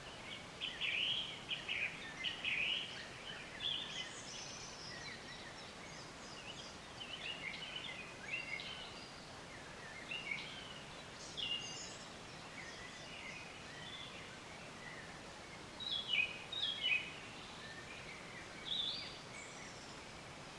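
Small songbirds singing in quick, high chirps and trills, scattered through with louder bursts near the start and about two-thirds of the way in, over a steady soft hiss.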